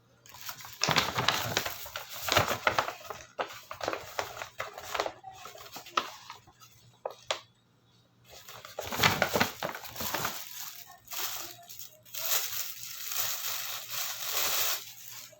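Packaging being handled and opened by hand: irregular crinkling and rustling with sharp crackles, in three bouts with quieter gaps between.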